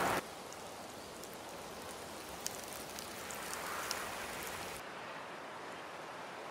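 Steady ambient hiss with a few faint clicks; the low rumble drops away about five seconds in.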